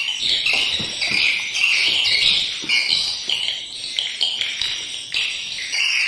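Recorded swiftlet calls playing from tweeter speakers in a swiftlet house: a steady stream of high chattering chirps in short repeating phrases. The lure call is loud enough to cover the roosting call, which is taken for a fault in where the lure speakers are placed.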